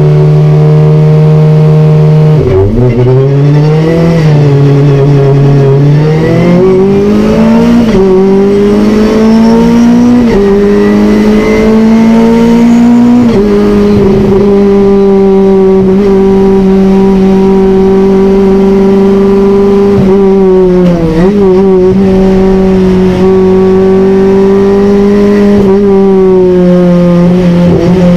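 Race car engine heard from inside the cockpit, held at high revs on the grid for a standing start. About two and a half seconds in the revs drop at the launch, then climb through the gears in rising sweeps with quick dips at each upshift. After that the engine runs at steady high revs, with a brief lift and blips around the twenty-second mark.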